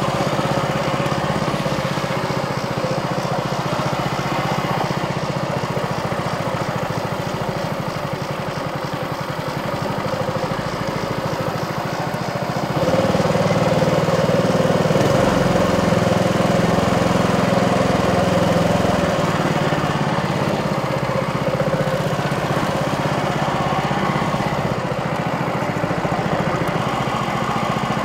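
Small mud-motor boat engine running steadily under way. It gets louder about halfway through and eases back a few seconds later.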